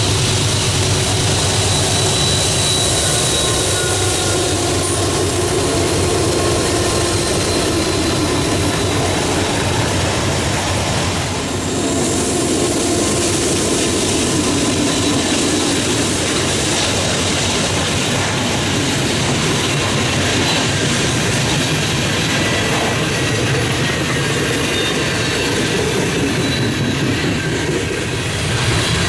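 Freight train cars rolling past: a steady, loud rumble of steel wheels on rail, with thin high-pitched wheel squeal coming and going.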